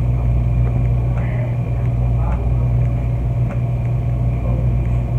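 Steady low mechanical hum of running machinery, with a few faint clicks.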